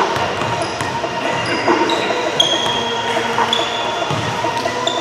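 Basketballs bouncing on a gym's hardwood floor, a few thuds, with short high squeaks of sneakers over a steady murmur of gym noise.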